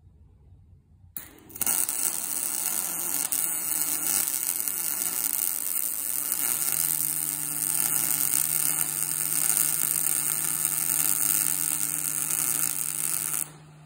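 Wire-feed (MIG) welding arc on steel bar: a steady crackling sizzle that starts about a second and a half in and stops abruptly near the end, with a low hum joining halfway through.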